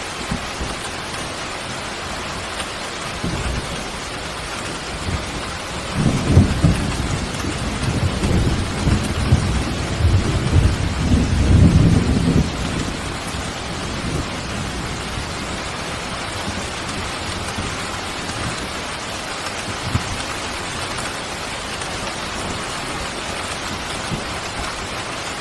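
Steady rain falling, with a long rumble of thunder starting about six seconds in and rolling for around six seconds before the rain is left alone again.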